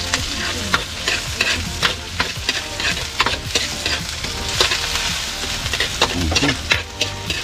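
Chopped onion and garlic sizzling in hot oil in a wok while a metal spoon stirs them, with frequent short clicks and scrapes of the spoon against the pan.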